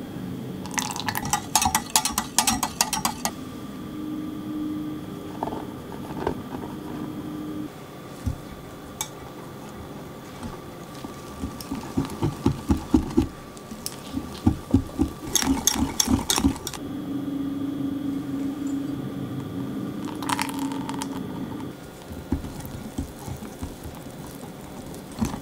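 Wire whisk beating thick cheesecake batter in a glass measuring jug. It comes in bursts of rapid clicking as the wires strike the glass, with softer, wetter strokes in between.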